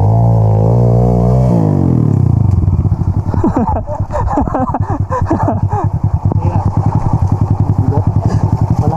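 Dirt bike engine running hard close by. It holds a steady pitch at first, then from about three seconds in revs up and down quickly and unevenly as the bike works through deep mud.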